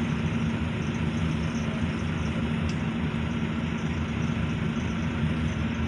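Steady low drone of an intercity bus's engine and road noise, heard from inside the passenger cabin as the bus runs slowly in traffic.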